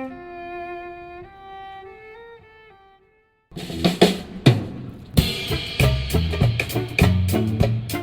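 Band music: a bowed string melody of held notes fades out, and after a brief silence a drum kit comes in with a bass line and the full band about three and a half seconds in.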